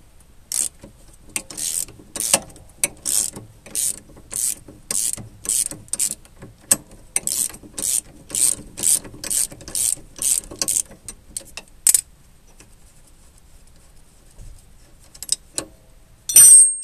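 A ratchet clicks in steady back-and-forth strokes, about two a second, as it undoes the nut on a mobility scooter's steering track rod end. The ratcheting stops about twelve seconds in, and a sharp, ringing metallic clink follows near the end.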